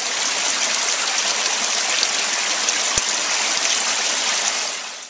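Small waterfall: a steady rush of water spilling over a rock ledge, with a single sharp click about three seconds in. It fades out at the end.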